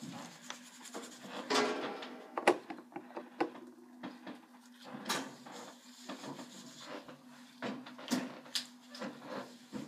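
Gloved hands rubbing hair dye through hair: scattered rustles and light knocks over a steady low hum, with one brief pitched sound about a second and a half in.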